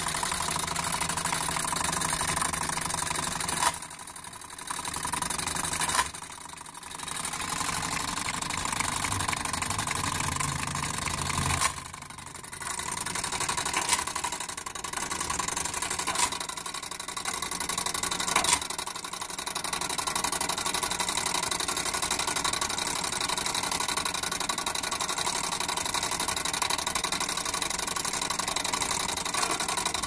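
Gamewell fire alarm punch register and alarm box mechanism running through an alarm cycle: a steady mechanical whirring rattle. It has a few brief lulls and sharp clicks in the first half, then runs evenly. This is the last cycle before the system shuts itself off.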